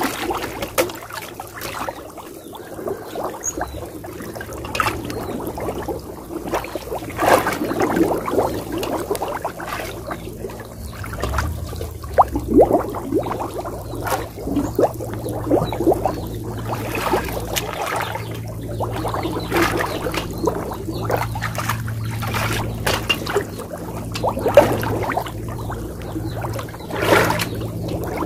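Muddy water splashing and trickling in irregular bursts as hands and a woven bamboo basket work through waist-deep water.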